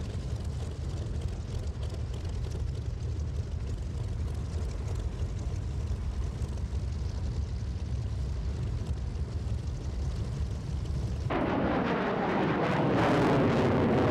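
Low, steady rumble of a Grumman F7F Tigercat's twin radial piston engines idling as it taxis. About three-quarters of the way through this gives way to the louder, wider roar of a Grumman F-14 Tomcat's jet engines as it flies in.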